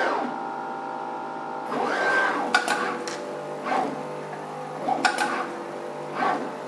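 Desktop pick-and-place machine running after start-up. Its motors give a steady whine that swells about every second and a half as the head moves, with sharp clicks among the moves.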